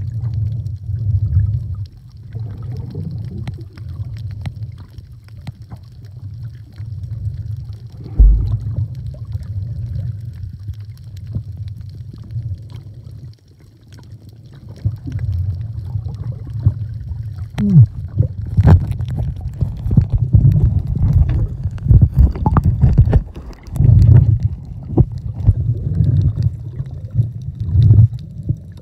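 Muffled underwater sound recorded by a submerged camera: a low churning rumble of moving water and bubbles, with scattered knocks and clicks that grow more frequent in the second half.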